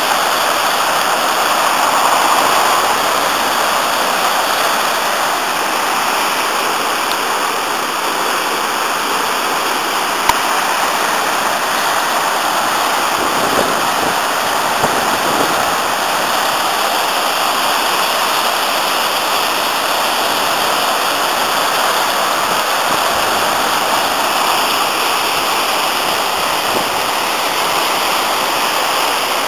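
The Afon Artro in flood after heavy rain, white water pouring over a rocky step in the river in a loud, steady rush.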